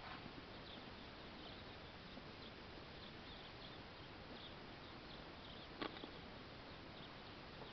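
Near silence: a faint steady hiss with scattered faint high-pitched ticks, and one sharp click about six seconds in.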